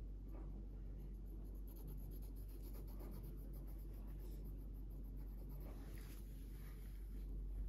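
Red felt-tip pen scribbling on paper in rapid short back-and-forth strokes, a scratchy rubbing as an area of the drawing is coloured in.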